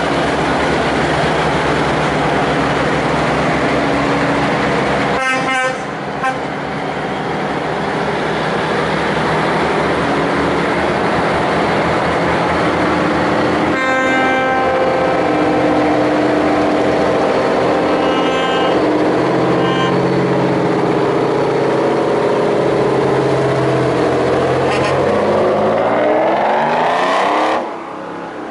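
Vintage Brockway heavy trucks' engines running as they drive past one after another, with horn blasts about halfway through and again a few seconds later. Near the end one engine revs up, rising in pitch, then drops off suddenly.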